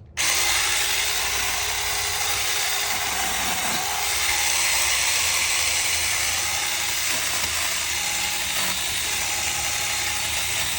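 6-inch cordless electric mini chainsaw switched on by its trigger, its motor and chain starting abruptly about a quarter second in and running steadily at a loud, even level.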